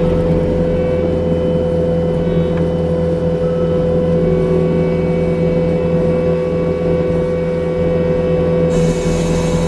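New Holland C327 skid steer's diesel engine running steadily under a constant high whine. Near the end a hiss comes in over it.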